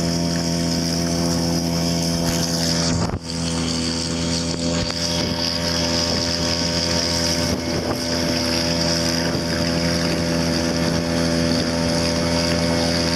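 Gamefisher 3.0 hp two-stroke outboard motor running at a steady speed, pushing the boat along, with wind hiss over it. The sound dips briefly about three seconds in.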